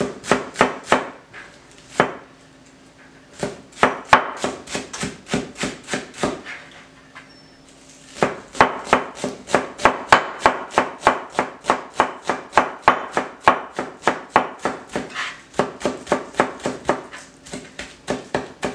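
Kitchen knife chopping green onions on a cutting board: quick, even strokes about four a second, stopping briefly twice, once a second or so in and again around the middle.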